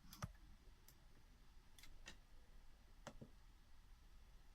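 Near silence broken by a few faint, scattered clicks: two close together right at the start, then single or paired clicks about one, two and three seconds in.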